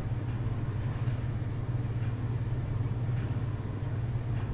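A steady low hum, like a running appliance or electrical hum.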